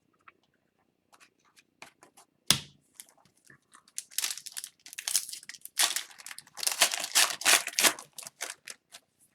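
Foil wrapper of an Upper Deck hockey card pack being torn and crinkled by hand, with a sharp snap about two and a half seconds in and a stretch of dense crinkling in the second half.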